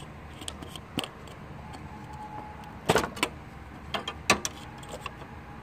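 Scattered sharp clicks and metallic knocks of hand tools and small parts being handled. The loudest come as a pair about three seconds in, with two more just after four seconds.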